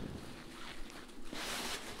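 A shovel scooping and scraping snow, with one longer crunching rush a little past halfway.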